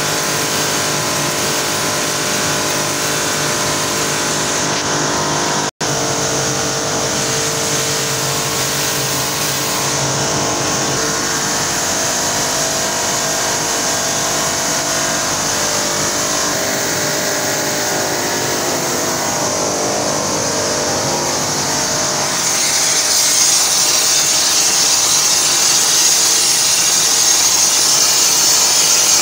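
Snack-production line machinery running: a steady, loud drone of motors with many steady tones. It cuts out for an instant about six seconds in, and about 22 seconds in it grows louder with a stronger hiss.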